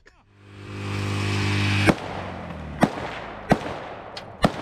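A riding lawnmower's engine runs steadily and grows louder over about two seconds. Then come four sharp .308 rifle shots, roughly a second apart; the first one cuts the engine sound off.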